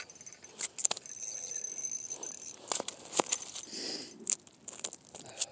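Handling noise at a hole in the ice: a string of sharp clicks, clinks and knocks with some rustling, as slush and ice chips are worked by hand.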